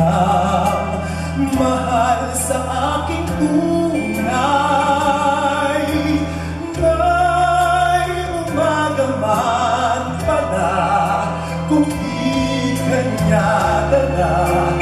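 A man singing into a handheld microphone with musical accompaniment, his voice wavering with vibrato on held notes over steady bass notes.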